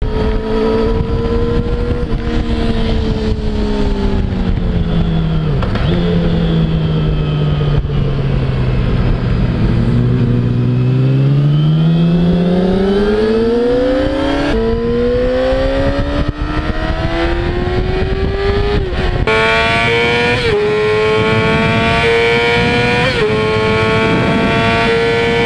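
2008 Yamaha R6's 600 cc inline-four engine at high revs on a circuit. The revs fall away and hold low through a corner, then climb steadily back up, with short dips at gear changes near the end.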